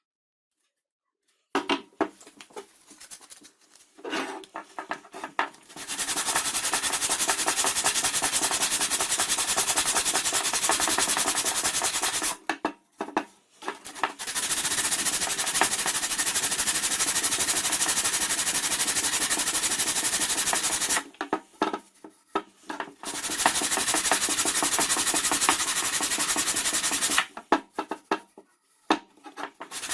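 A small electric woodworking power tool running on wood in three long stretches, stopping briefly between them, with a few clicks and handling noises in the gaps.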